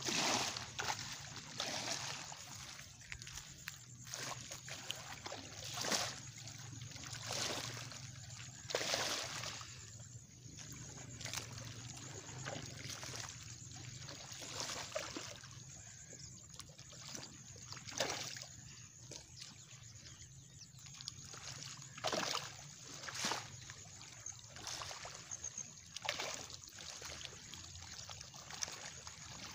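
Water splashing and sloshing at the edge of a reservoir bank as hands work in the shallow water. Irregular splashes come every second or few, louder ones about two, six, nine, eighteen and twenty-two seconds in.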